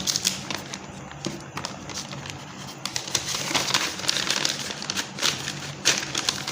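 Packaging crinkling and rustling in irregular crackles as the next gift item is handled and unwrapped, over a faint steady low hum.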